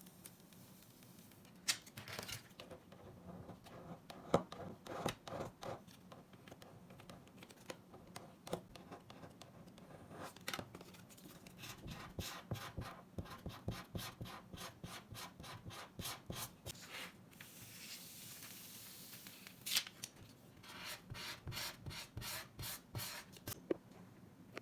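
Runs of quick, scratchy rubbing strokes on an iPad screen protector, with a short stretch of steady hiss past the middle.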